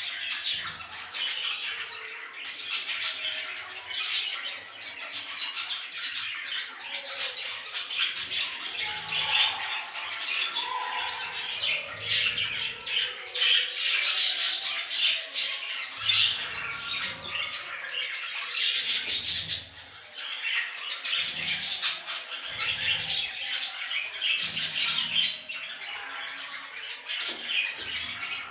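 Budgerigars chattering and squawking: a dense, continuous warble of quick chirps and harsh calls.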